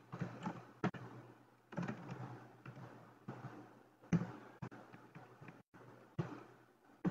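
Computer keyboard keystrokes: about eight separate taps at irregular intervals, each followed by a short trailing noise.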